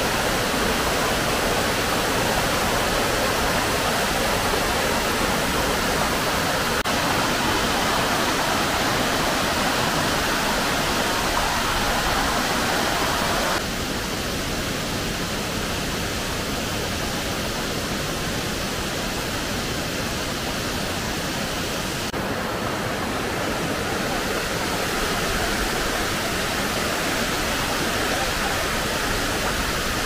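Waterfall: water pouring over the shallow rim of a rock cascade, a steady rushing. Its tone changes abruptly about a third of the way in and again later.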